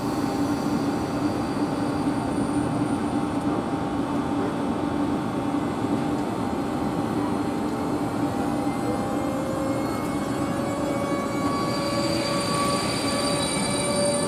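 ÖBB class 1216 Taurus electric locomotive hauling a railjet, moving slowly alongside the platform: a steady rumble of the train with steady tones, joined from about nine seconds in by higher whining tones that rise a little.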